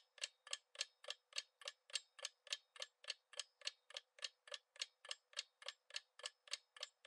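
Countdown-timer sound effect ticking steadily like a clock, about three and a half even ticks a second.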